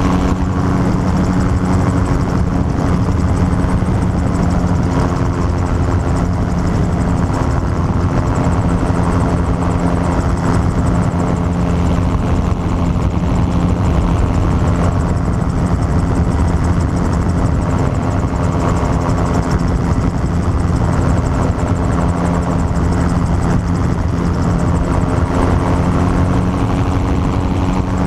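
Gyrocopter in level flight: its engine and propeller running steadily, heard from the pilot's seat.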